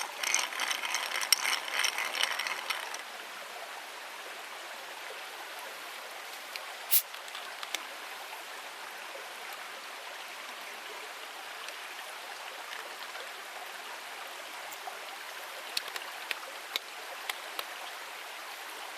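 Steady rushing noise like flowing water, with a rattling flurry of clicks in the first three seconds, one sharp crack about seven seconds in, and a few small clicks near the end.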